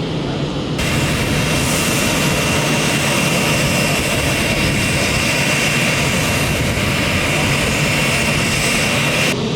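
Aircraft jet engines running loud: a hiss with a steady high whine cuts in about a second in and cuts off suddenly near the end, over a steady low engine rumble.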